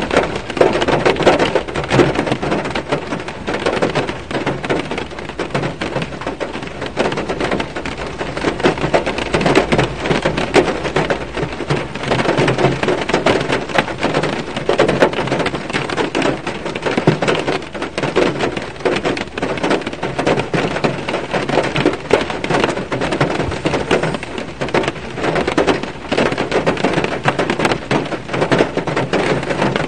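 Heavy rain pattering on a car's roof and glass, heard from inside the car: a dense, steady crackle of countless drops.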